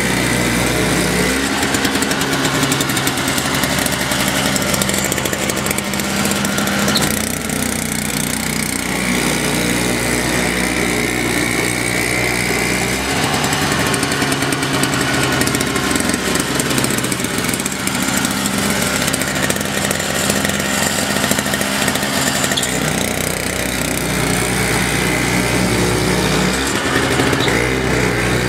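Toro Power Clear 210E single-stage snowblower running steadily while throwing wet, slushy snow, its small engine note shifting a little as it takes load, about one second in, around thirteen seconds in and again near twenty-two seconds.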